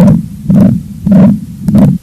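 Recorded heart sounds with a murmur from a diseased heart valve: harsh, whooshing beats repeating a little under twice a second. The recording cuts off suddenly at the end.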